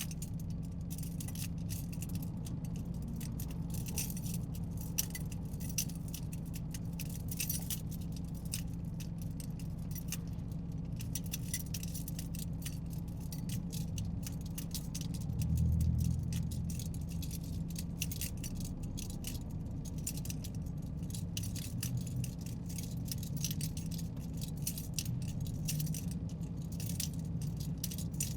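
Steady low drone of a car driving, heard from inside the cabin, with constant small ticks and rattles over it. About halfway through, the low drone swells louder for a second or two, then settles.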